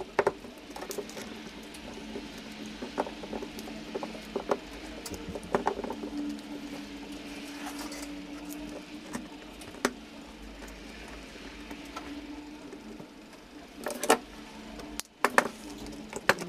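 Irregular clicks and taps of plastic housing parts and wiring being handled and fitted inside an opened Makita SP6000 plunge saw, with a cluster of sharper knocks near the end.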